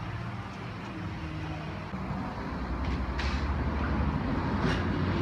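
A low, steady mechanical hum, engine-like, growing louder toward the end, with two faint knocks partway through.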